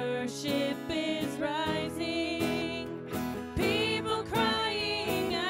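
Live contemporary worship song: women singing long held notes with vibrato over acoustic guitar and keyboard.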